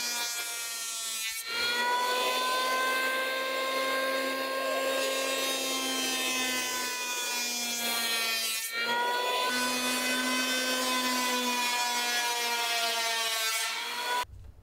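Large electric hand planer running and cutting along a long Sitka spruce mast stave: a steady high motor whine over cutting noise, with two short breaks, stopping abruptly near the end.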